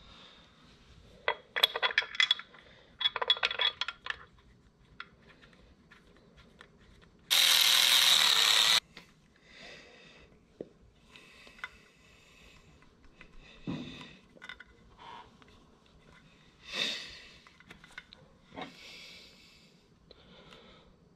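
Handling noises as rubber breather hoses are pushed through grommets in a motorcycle air cleaner backing plate: clattering clicks in the first few seconds, then scattered rubbing and rustling. The loudest sound is a steady hiss about eight seconds in, lasting about a second and a half.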